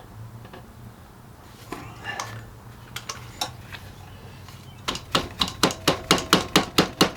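A few scattered metallic clinks, then a quick run of sharp metallic taps, about five a second and getting louder, with a faint ringing tone, as a stuck part on the pressure washer is worked loose with a metal tool.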